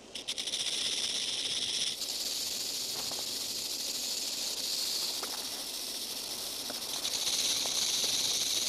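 Western diamondback rattlesnake shaking its tail rattle: a continuous high, dry buzz that starts suddenly and runs on steadily, a little louder near the end. It is the defensive warning rattle of a disturbed, irritable snake.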